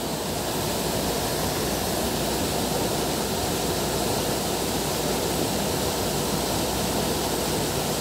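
Waterfall rushing steadily, an unbroken wash of falling water.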